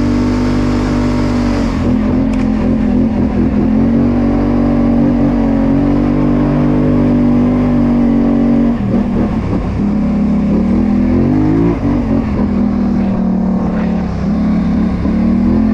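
Polaris Sportsman 850 ATV's twin-cylinder engine running under throttle on a dirt trail. Its pitch holds steady, dips about nine seconds in, then climbs again in short rises.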